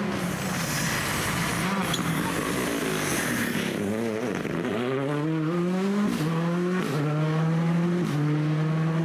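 Rally car engine at speed: the revs fall to a low point about four seconds in, then climb hard as the car accelerates away, dropping back with each quick upshift.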